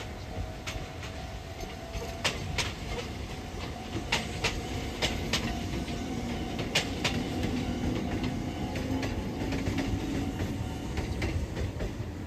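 Electric commuter train running off along the line, its wheels clicking over the rail joints in sharp clicks, often in pairs, over a steady rumble. A faint tone dies away in the first couple of seconds, and a low hum rises and fades in the middle.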